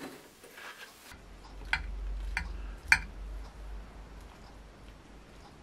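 Light clicks of cutlery on a plate, about half a dozen spread over a few seconds, the loudest a little under three seconds in, over a low steady hum.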